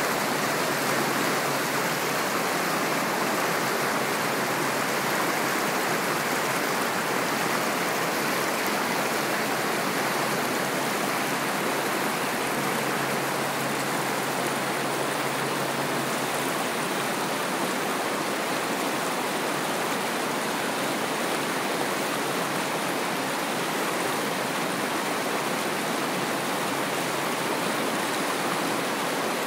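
Steady rush of whitewater rapids: a wide river pouring over rock shoals, with an even, unbroken roar of churning water.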